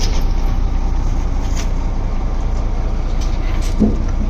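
A fishing trawler's inboard engine running steadily with a deep, even rumble, with a few light knocks and clatters on deck over it.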